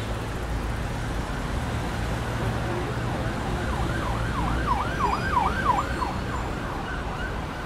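City traffic rumble with an emergency vehicle's siren coming in about halfway through, yelping in quick rising-and-falling sweeps, about three to four a second, then fading near the end.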